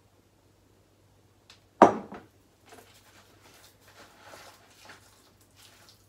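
A single sharp clack about two seconds in as a ceramic cup is put down, with a smaller knock right after, then faint, uneven scraping of a spoon mixing curd cheese in a plastic bowl.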